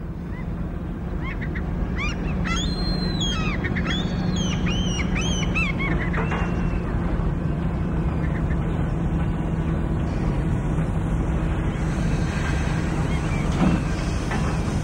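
Shipyard ambience: a steady low industrial rumble and hum fades up, with gulls calling over it for the first several seconds. A single clank comes near the end.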